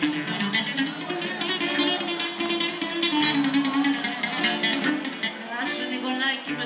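Bowl-backed lute plucked in a live melody, its notes stepping up and down.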